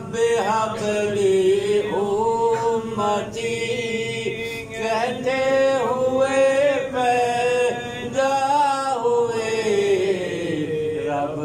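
A man chanting a slow, melodic Islamic chant into a microphone, drawing out long wavering notes with brief pauses for breath.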